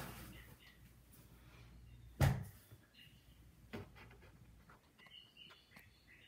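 A dull thump about two seconds in, then a fainter knock about a second and a half later, against near-quiet room tone.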